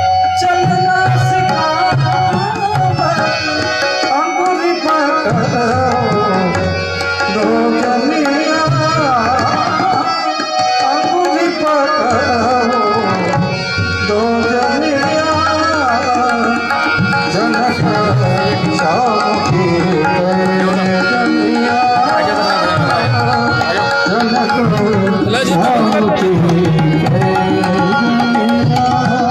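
Indian folk song: a singing voice with hand-drum accompaniment, playing without a break.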